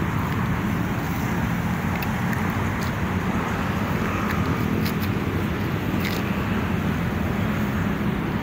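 Steady low rumble of outdoor city ambience, with a few faint ticks.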